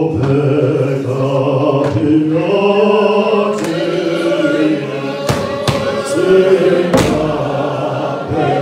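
A large group of men singing a Xhosa hymn together as a congregation, in sustained harmony. A few sharp hits sound in the second half.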